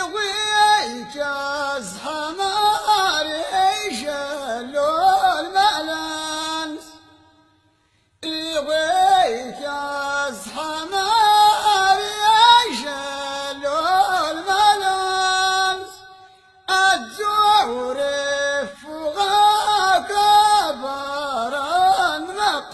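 Ahwach singing, a voice holding long, ornamented phrases that slide up and down in pitch, broken by two short pauses.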